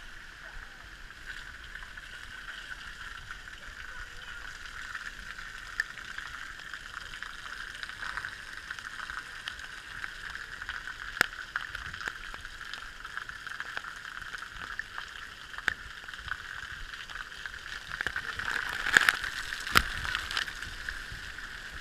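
Running and splashing water at a splash playground, heard muffled and steady, with a few sharp knocks; the loudest knocks come near the end.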